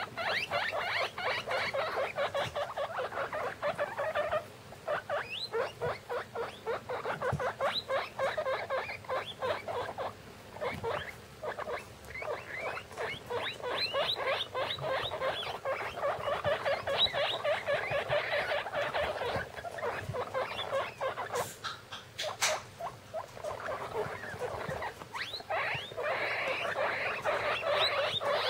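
Baby guinea pigs squeaking, several at once, in a fast, almost continuous stream of short high calls with a couple of brief lulls. Two sharp knocks come about three-quarters of the way through.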